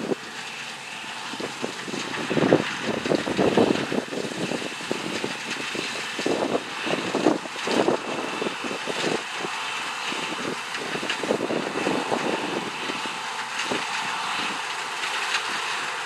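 New Holland CX8040 combine harvester running steadily as it cuts and threshes wheat, with irregular gusts of wind buffeting the microphone.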